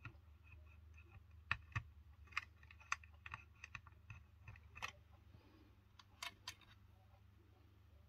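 Faint, irregular small clicks and taps of wire connectors being pushed onto the contacts of a rotary switch and of fingers working against a plastic project box, over a steady low hum.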